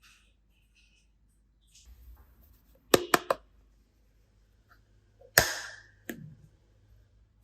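Sharp snaps: three quick ones close together about three seconds in, then a louder single snap with a brief rustling tail about two seconds later, and a lighter click after it.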